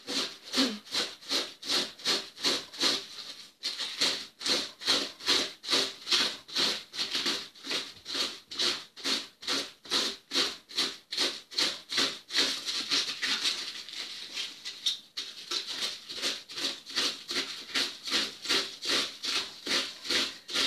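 Half a head of cabbage being shredded on a wooden hand slicer with a metal blade: the head is pushed back and forth over the blade, each pass giving a crisp rasping stroke, about two and a half strokes a second, with two short breaks.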